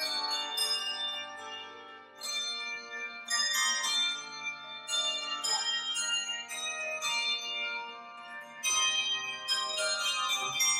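Handbell choir playing a piece: chords of handbells struck and left ringing over one another, growing softer about two seconds in and again near eight seconds, each time broken by a loud new chord.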